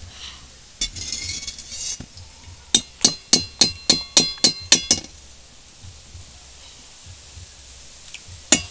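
A slotted metal skimmer knocked about ten times in quick succession against a metal kadai holding frying oil, each knock ringing, after a short scrape about a second in; one more knock near the end.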